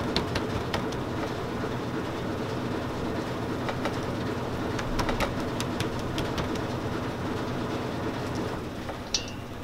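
Steady mechanical hum with scattered light clicks, and a brief high squeak about nine seconds in.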